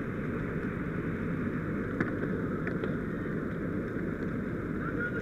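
Fire engine running with a steady rumble, with a sharp click about two seconds in and a few fainter ticks.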